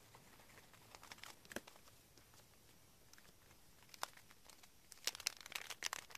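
Faint crinkling of paper and clear plastic sticker packaging being handled: a few soft rustles about a second in, a sharp tick near four seconds, and a denser run of crinkling near the end as the plastic bag is picked up.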